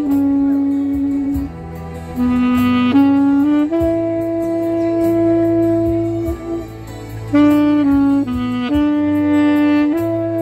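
Saxophone playing a slow melody of held notes, the longest held for more than two seconds in the middle, over a lower recorded accompaniment.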